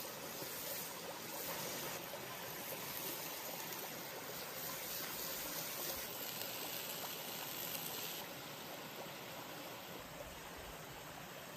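Steady rush of flowing stream water, an even hiss with no distinct events.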